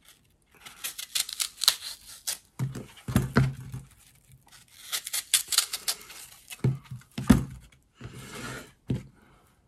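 Knife cutting the core out of a peeled apple held in the hand: a string of short, crisp crunching and scraping cuts through the firm flesh.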